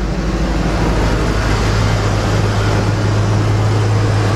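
2004 Lincoln Navigator's 5.4-litre V8 idling steadily, running slightly rough with a cylinder misfire.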